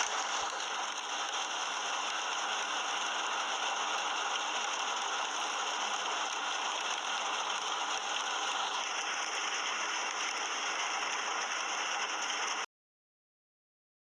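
Heavy rain falling, a dense, steady hiss and patter that cuts off abruptly a little before the end.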